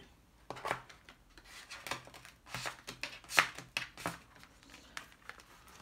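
Tarot cards being slid across a tabletop and picked up from a spread: a run of short papery scuffs and taps, some card rubbing on card.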